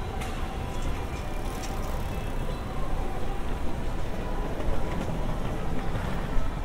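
City street ambience at a road crossing: steady noise of road traffic and passing cars, with scattered small clicks.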